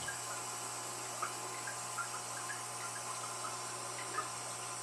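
Aquarium water trickling steadily, with small irregular plinks of drops or bubbles.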